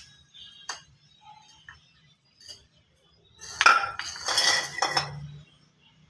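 Metal tools clinking and clattering on a tiled floor as they are handled: a few light clicks, then a burst of clatter about three and a half seconds in that lasts over a second.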